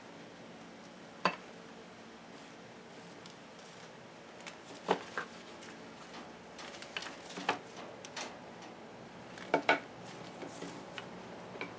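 Scattered sharp clicks and knocks, about ten at irregular intervals, some in quick pairs, over a faint steady hum: objects being handled and set down.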